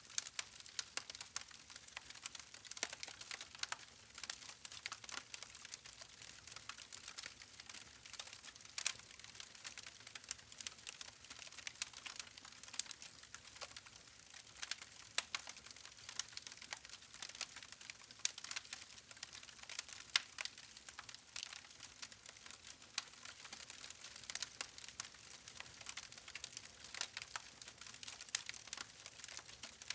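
Wood fire crackling: a steady scatter of sharp, irregular pops and snaps over a soft hiss of burning logs.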